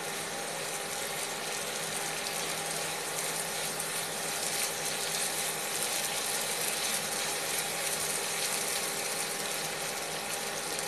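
Yellow silicone spatula stirring boiled black chickpeas in masala in a non-stick frying pan: a steady scraping and sizzling, over a faint steady hum.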